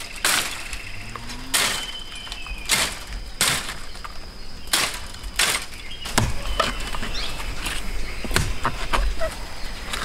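A large knife chopping into the base of a young bamboo shoot among dry bamboo litter: about ten sharp strokes at irregular spacing, the heaviest in the first six seconds and lighter ones after.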